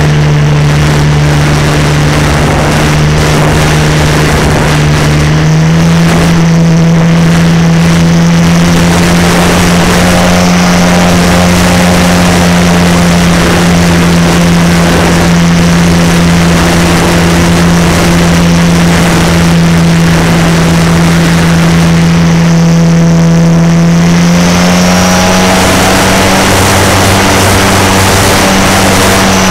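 Electric motor and propeller of a Parkzone T-28 RC model plane droning steadily in cruise, heard from the plane's onboard camera with wind rushing past. The pitch steps up slightly as the throttle is nudged, about five seconds in and again near the end.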